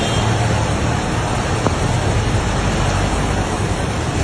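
Floodwater rushing, a loud, steady, even roar with a faint click about two seconds in.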